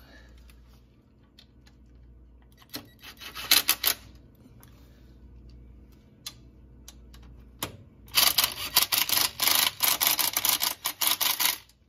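Cordless power driver with a socket extension snugging the transmission pan bolts on a Nissan Titan, in two runs of rapid clicking rattle: a short one about three and a half seconds in and a longer, louder one from about eight seconds in until just before the end.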